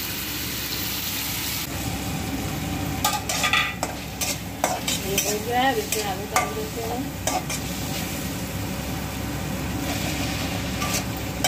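Onions, green chillies and tomatoes sizzling in oil in a metal kadhai, with a metal spatula stirring and scraping against the pan in a run of clinks from about three seconds in. Near the end, diced raw potatoes are tipped into the pan.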